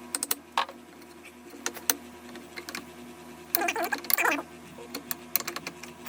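Irregular sharp clicks and taps of hand tools and metal parts being handled while a hydraulic crimping tool is worked on, with a short burst of rattling clicks about halfway through, over a faint steady hum.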